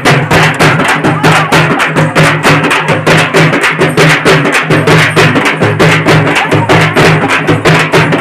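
Loud, fast drumming in a steady rhythm of about four to five strokes a second, over a low steady tone, with no break.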